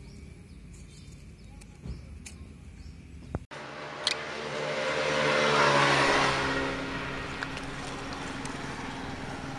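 A motor vehicle passing by, its engine and tyre noise swelling to a peak near the middle and then fading away. Before it, a faint steady hum with a few sharp clicks.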